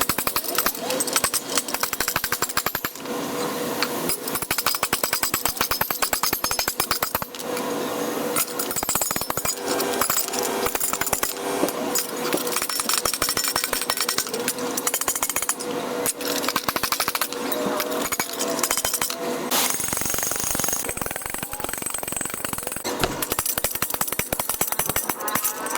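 A power tool hammering rapidly and steadily, a dense run of impacts with brief breaks about three and seven seconds in.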